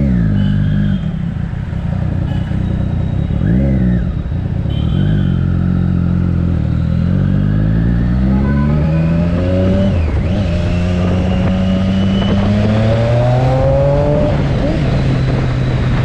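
Triumph Daytona 675's inline three-cylinder engine with an Arrow aftermarket exhaust, riding in traffic. The revs rise and fall twice in short bursts, then climb steadily, drop about ten seconds in, and climb again.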